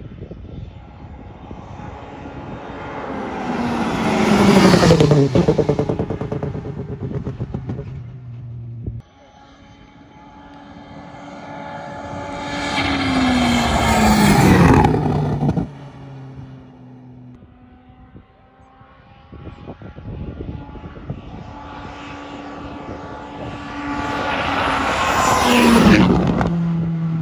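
Rally cars passing at full speed three times in turn, the last a Skoda Fabia rally car. Each engine note rises in loudness as the car approaches and drops sharply in pitch as it goes by.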